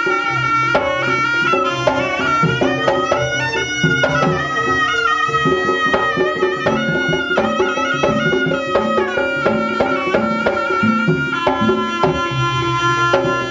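Kuda kepang accompaniment music: a wind instrument plays a held, stepping melody over frequent drum strokes.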